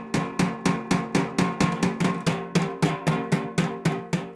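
Hammer driving a wooden block against a washer's metal inner basket to knock bent-in spider arm mounting holes straight. Quick, even blows at about four a second, the basket ringing with each.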